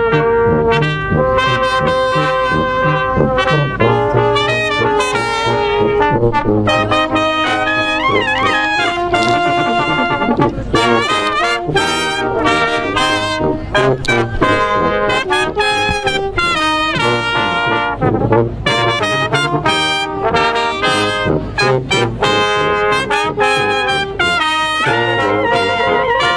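A small brass band of French horn, trumpets, trombone and tuba playing a tune together in the open air, with the notes changing quickly and steadily throughout.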